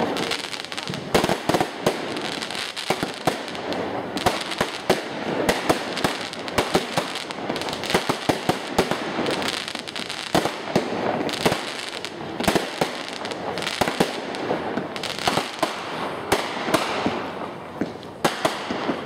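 Aerial fireworks display going off in a dense string of sharp bangs and crackles, several a second, with a short lull near the end before it picks up again.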